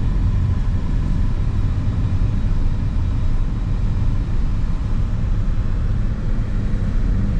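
Car's engine and road noise as a steady low rumble, heard from inside the cabin while driving.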